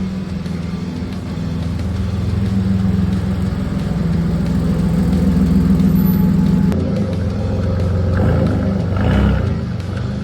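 Nissan Y31 Cedric's 3.0-litre VG30 V6, freshly repaired, running steadily, then revved up a couple of times near the end.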